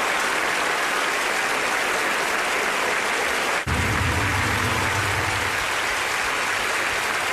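A concert audience applauding, a dense even clatter of many hands. About three and a half seconds in there is a momentary break, and after it a low steady hum sits beneath the applause.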